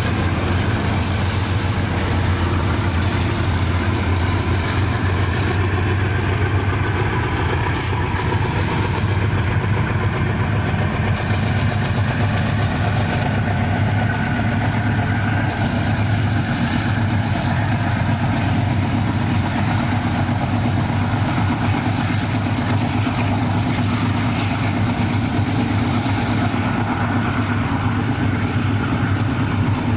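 Diesel freight locomotives running with a steady, loud low drone.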